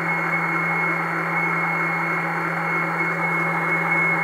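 Electric kitchen mixer (robot de bucătărie) running at a steady speed with a constant high whine and low hum, beating cream-cheese cheesecake filling.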